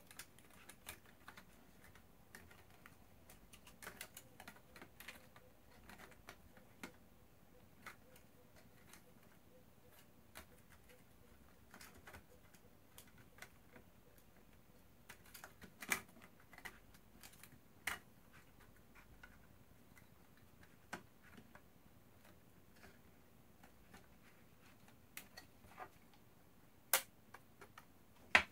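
Scattered small clicks and taps of fingers handling an Xbox One disc drive's circuit board and ribbon cables as the board is refitted, with a few sharper clicks around the middle and near the end.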